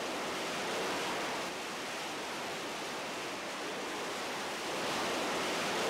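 A steady rushing noise with no distinct tones or clicks, swelling slightly at times.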